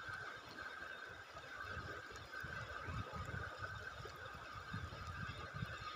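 Steady rush of a shallow river running over rocks, with uneven gusts of wind rumbling on the microphone.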